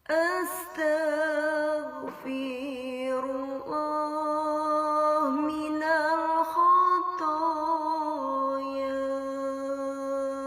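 A single unaccompanied voice chanting in long, drawn-out notes with a slight waver, pausing briefly a few times for breath.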